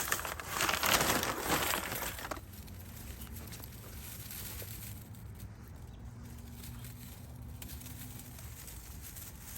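Dry, dead hydrangea flower heads and stems crackling and rustling as they are handled and snapped off, for about two seconds near the start. A low, steady outdoor background follows.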